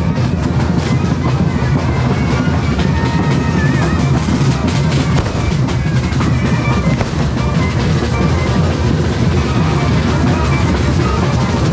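Mexican street brass band playing, with sousaphones and trumpets over loud drumming.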